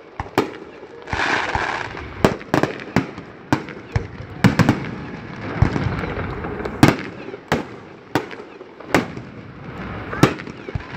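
Aerial fireworks shells bursting in a quick, irregular series of sharp bangs, about one or two a second, with a brief hiss about a second in.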